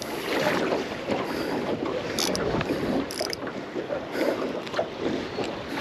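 Water sloshing and splashing around a small fishing boat, with wind buffeting the microphone, and a couple of short, sharper splashes about two and three seconds in.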